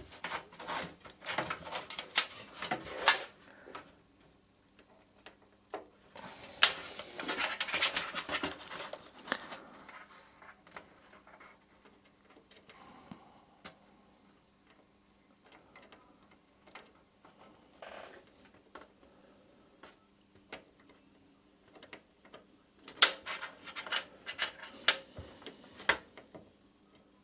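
Plastic clicks, rattles and scraping of a cable connector being pushed and worked inside a computer case, in three busy bursts with scattered small clicks between. The connector won't seat because it is being pushed in the wrong way round.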